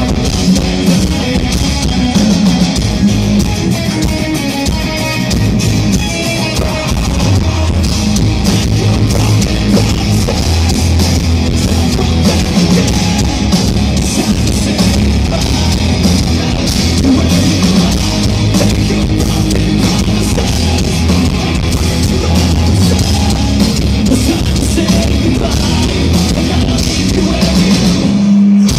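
Live hard rock band playing loud through a stage PA: distorted electric guitar, bass and drum kit. The music breaks off briefly near the end.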